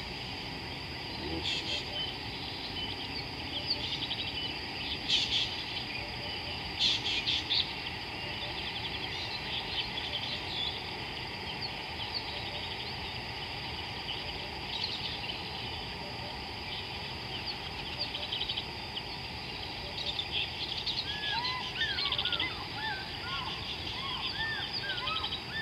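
Birds calling along an African riverbank over a steady high-pitched background hum, with bursts of rapid trilling now and then. Near the end a run of short, arching whistled chirps joins in.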